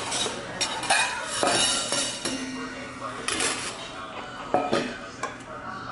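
Dishes and metal cutlery clinking now and then, several sharp clinks in all, over faint background chatter.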